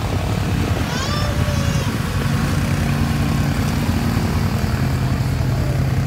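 Suzuki King Quad 750 ATV's single-cylinder engine running steadily under load as it wades through deep mud water, its note settling into an even drone about two seconds in.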